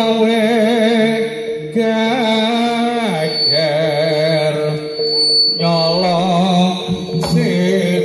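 Live Javanese jaranan music: a melody of long, wavering, sliding notes over a steady backing.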